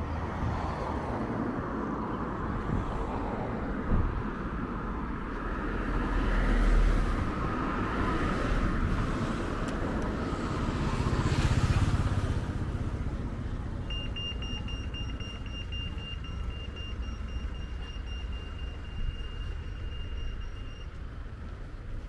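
Cars passing on the road, two of them swelling louder as they go by. From about halfway through, a pedestrian crossing's electronic signal sounds a high tone for about seven seconds.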